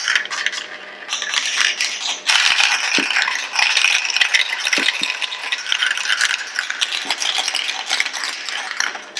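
Many marbles clattering and rolling down through the translucent plastic cubes and rails of a Q-BA-MAZE 2.0 marble run, a dense continuous rattle. It dips briefly about a second in and then picks up again.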